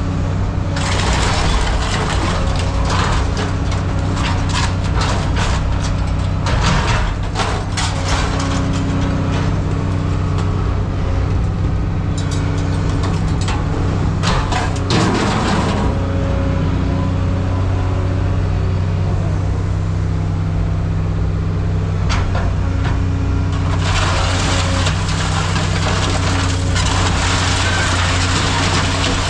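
An engine running steadily at a constant speed, with repeated knocks and clatter, likely scrap metal being handled, through roughly the first half and again near the end.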